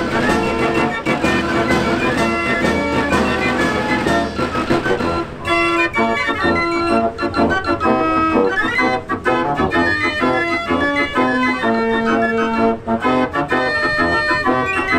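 A 49-key Marenghi fair organ playing a tune, its pipes sounding in full with sharp percussive strokes. About five seconds in the bass drops away and the music thins to lighter, higher notes.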